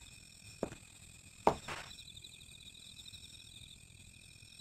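Crickets chirping steadily and faintly, with a few soft knocks, the loudest about a second and a half in.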